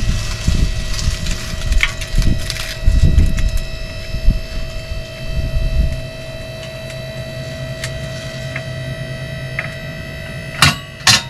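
QuickJack portable electric-hydraulic lift's pump motor running with a steady whine as it raises a pickup truck. Low creaks and knocks come in the first half, and two sharp clicks near the end.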